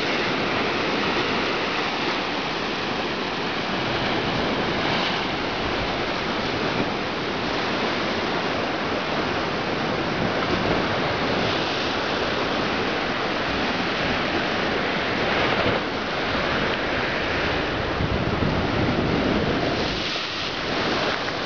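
Ocean surf churning and breaking against a rocky cliff below, a steady wash of water noise that swells a few times as waves hit.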